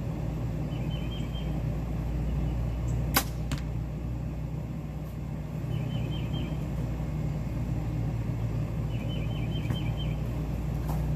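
Obsession Defcon HZ7 compound bow shot about three seconds in: a sharp crack at release, followed less than half a second later by a weaker knock of the arrow striking the target about 30 yards off. A bird chirps in three short runs of quick notes over a steady low hum.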